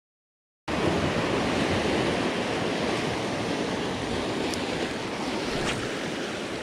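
Sea surf breaking and washing over shoreline rocks, a steady rushing wash that starts abruptly after a moment of silence about a second in.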